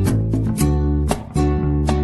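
Background music led by a strummed guitar, with a steady rhythm of about two strums a second.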